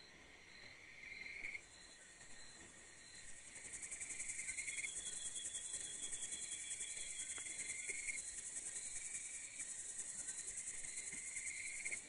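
Crickets and other insects chirping. A high, fast-pulsing chirr gets louder about three and a half seconds in, over a lower trill that repeats every second or two.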